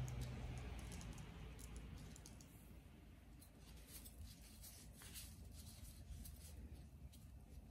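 Faint rustling and scattered light ticks of a plastic-gloved hand pinching sesame seeds from a plate and sprinkling them.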